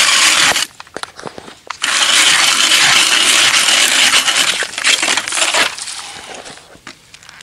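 Old Leningrad-type hand ice auger boring into ice: a loud scraping hiss with crunching and clicking of ice chips. It breaks off briefly about a second in, resumes, and fades out toward the end.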